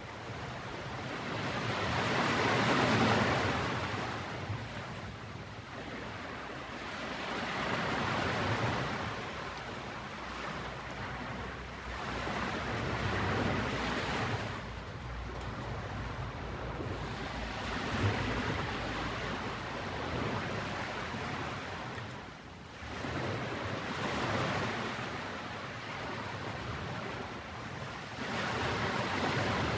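Ocean waves washing onto a beach, the surf swelling and falling back roughly every five seconds.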